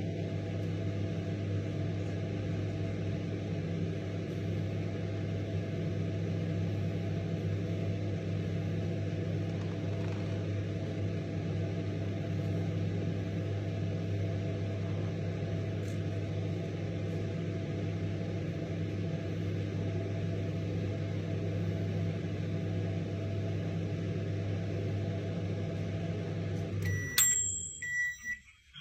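Microwave oven running with a steady low hum, then shutting off near the end, followed by short high beeps.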